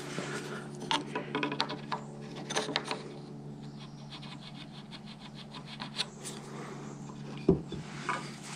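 Wood being handled and worked: scattered knocks and scrapes, a quick run of light ticks midway, and one heavier thump near the end, over a steady low hum.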